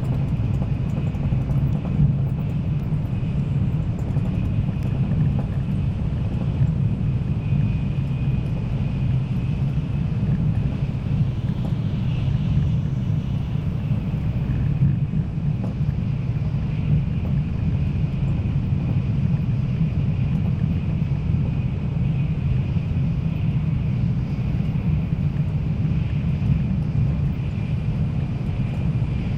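Cabin noise inside an N700 series Tokaido Shinkansen train running at speed: a steady low rumble with a faint high whine above it.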